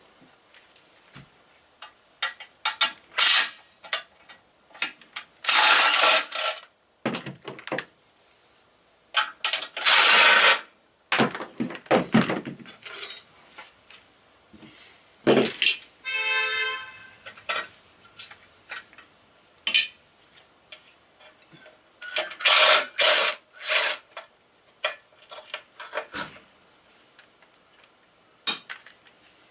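Hand tools working the mounting bolts of a KLR 650's aluminum crash pan (skid plate): irregular clicks and metal clinks, with several louder ratcheting or spinning bursts of about a second each. A short pitched squeak comes about halfway through.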